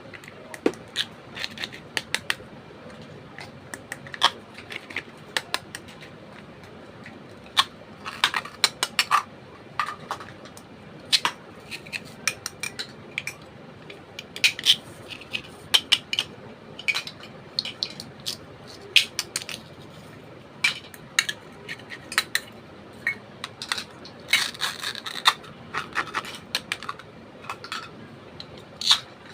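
Small plastic miniature toy kitchen pieces being handled, with irregular sharp clicks and clatters, sometimes several in quick succession.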